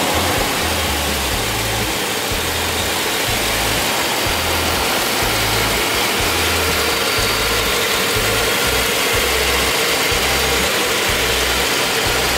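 The truck's fuel-injected V8 running steadily under background music with a bass line that changes note about once a second.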